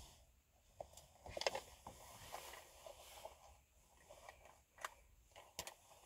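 Faint rustling and a few light clicks and taps of small items being handled while someone rummages for a dropped makeup product.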